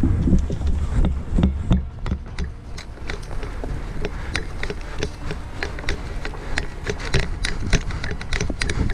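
Footsteps and gear rattling as an airsoft player runs across grass, a quick irregular run of sharp taps and clicks. A low wind rumble on the microphone in the first two seconds.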